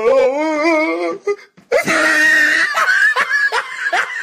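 Hard laughter: a wavering, trembling laugh for about a second, then after a short break a high-pitched squeal of a laugh that turns into quick, rhythmic ha-ha pulses, about four a second.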